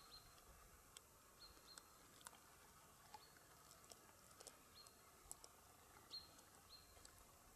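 Near silence: faint scattered clicks of a dog gnawing a bone, with a few faint short high chirps.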